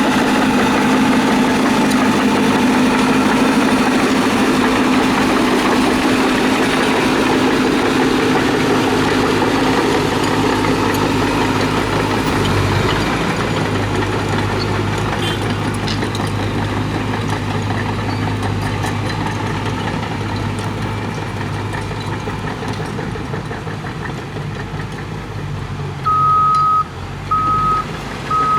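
Heavy diesel engine of earthmoving machinery running loud and steady, its pitch dropping sharply about halfway through, then running lower and slowly getting quieter. Near the end a reversing alarm starts up with evenly spaced single-tone beeps.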